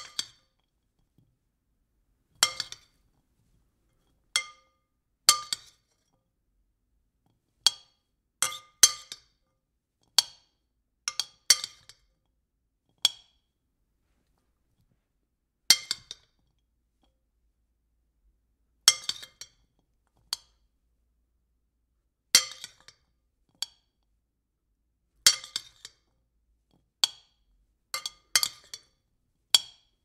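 A spoon clinking against a bowl, striking singly and in quick groups of two or three, with gaps of a second or more between strikes. Each clink rings briefly with a few clear tones.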